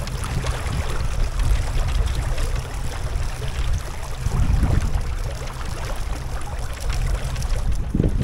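Water rushing and splashing along the hull of an inflatable boat driven by an electric outboard, with a steady low rumble underneath.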